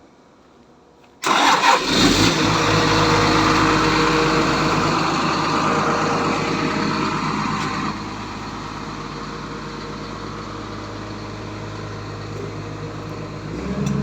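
Komatsu PC200 excavator's diesel engine starting abruptly about a second in and running loudly, then dropping to a lower, steady idle about eight seconds in.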